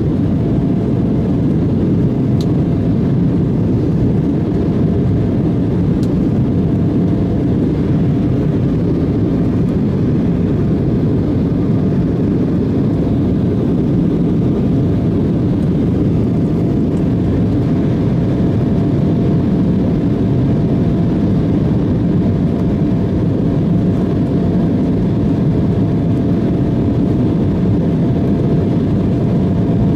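Steady cabin noise of an Embraer E175 jet airliner: an even rush of turbofan engines and airflow, with a faint constant tone above it.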